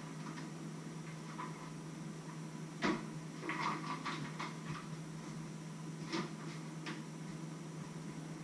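Kitchen items being handled: a sharp knock about three seconds in, a quick run of small clatters just after, and two more knocks a few seconds later, over a steady low hum.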